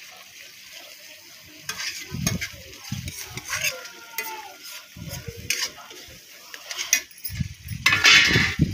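Steel spoon stirring and scraping a thick masala paste in a metal kadhai while the paste sizzles as it fries. It is fairly quiet at first, then irregular scraping strokes start about two seconds in, and it is loudest near the end.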